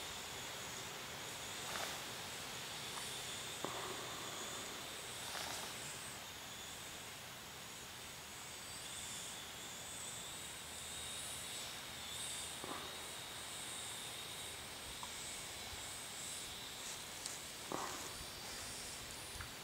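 Faint, thin high whine of a small quadcopter's propellers in flight, wavering slightly as the motors adjust, over a steady outdoor hiss with a few light clicks.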